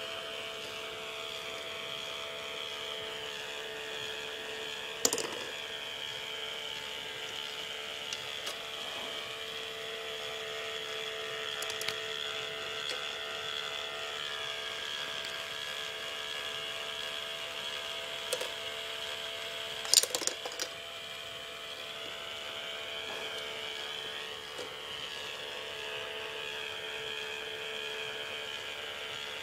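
A K'nex ball machine lift running: its small electric motor and plastic gears give a steady whine. A few sharp clacks cut through, a loud one about five seconds in and a quick cluster about twenty seconds in.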